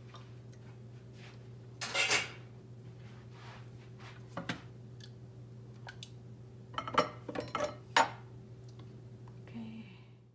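Plastic blender jar and lids knocking and clattering against a glass bowl in a sink: a clatter about two seconds in, a few scattered clinks, then a quick run of knocks about seven to eight seconds in, over a steady low hum.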